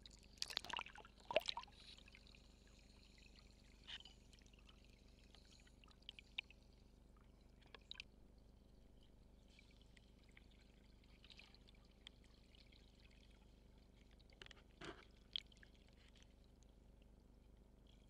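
Water splashing and gurgling as the camera goes below the surface, in a cluster of sharp bursts near the start. After that, near silence underwater with a few scattered clicks and pops, and another short burst of gurgling about fifteen seconds in.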